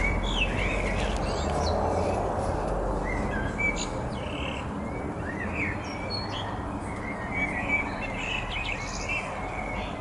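Birds chirping in short, scattered calls over a steady low rumble.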